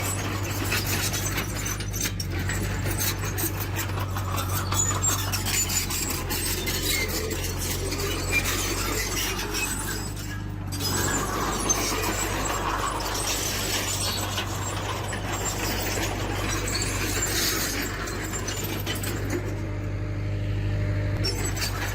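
Diesel engine of a tracked earthmoving machine running steadily under load, with repeated metallic squeals and clanks over it.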